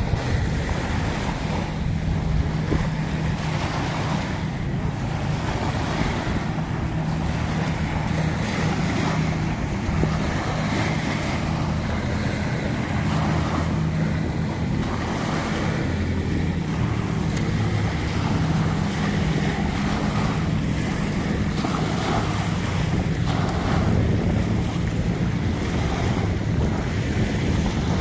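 Small sea waves lapping and washing up on a sandy beach, with wind rumbling on the microphone throughout.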